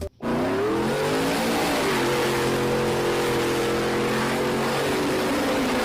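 Recorded car engine sound revving up over about two seconds, then holding a steady high pitch with a hiss beneath it; it starts abruptly.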